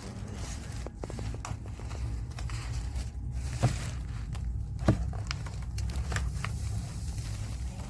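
MOVA S10 Plus robot vacuum running over the floor: a steady low rumble with scattered clicks and scrapes, and two sharper clicks about three and a half and five seconds in.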